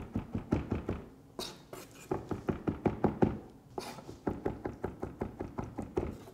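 Chef's knife chopping egg white on a cutting board: quick, even knocks of the blade on the board, about six a second, in runs broken by a short pause about a second in.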